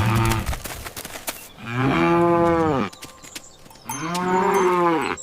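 Cow mooing: a short call at the very start, then two long moos, each rising and then falling in pitch.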